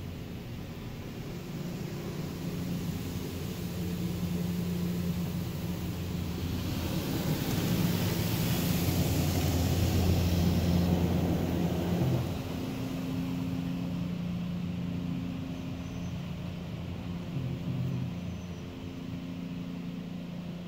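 Automatic car wash heard from inside the car: water spraying and sheeting over the windshield and roof, swelling to its loudest about seven seconds in and easing after about twelve, over a steady low machinery hum.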